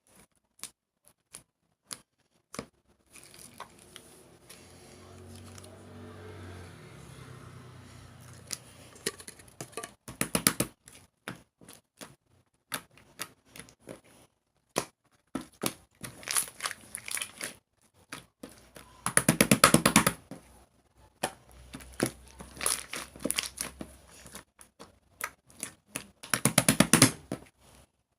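Slime being squeezed, stretched and pressed by hand: sticky crackling and popping clicks that come in scattered snaps and dense bursts, the densest about ten seconds in, about two-thirds through and near the end. A faint low hum sits under the first third.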